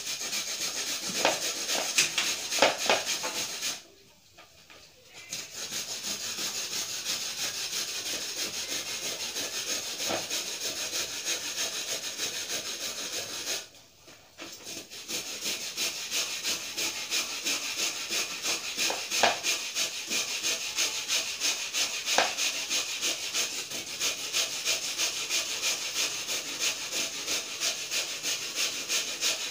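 Rapid, rhythmic hand scraping with a hand tool, short strokes repeated steadily. It breaks off briefly twice, about four seconds in and again about fourteen seconds in.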